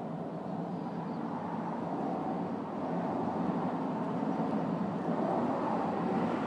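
Steady low background rumble, a little louder from about three seconds in.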